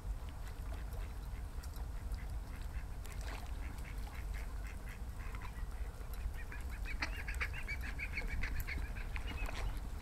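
Goosander (common merganser) calling: a few scattered notes early on, then a fast run of short repeated notes from about two-thirds of the way in to near the end, over a steady low rumble.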